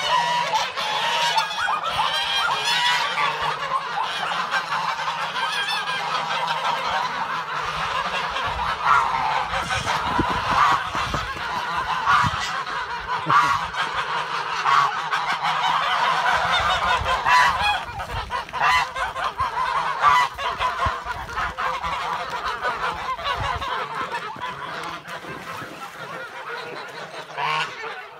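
A large flock of domestic geese honking continuously, many calls overlapping into a constant clamour that grows a little fainter near the end.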